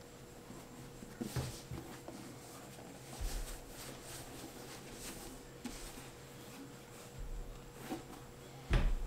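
Hands rubbing conditioner into a leather work boot and handling it, with a few soft knocks as the heavy boot is shifted about, and one louder thump near the end.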